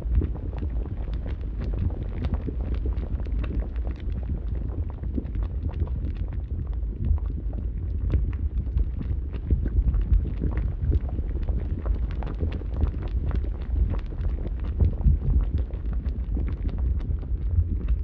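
Fire sound effect: a steady low rumble of burning flames with dense, irregular crackling throughout.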